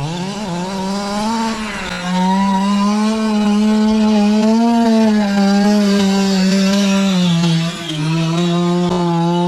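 Losi 5IVE-T's small two-stroke gasoline engine running at high revs with a chainsaw-like buzz. Its pitch rises and falls gently with the throttle, dipping briefly about eight seconds in.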